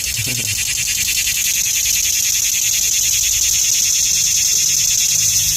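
Cicada calling: a loud, high, rapidly pulsing buzz that swells slightly over the first couple of seconds and then holds steady.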